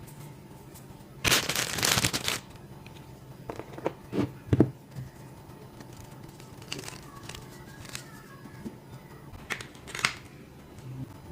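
Plastic packaging crinkling as it is torn open, loudly for about a second, followed by a few light knocks and taps of handling the prize.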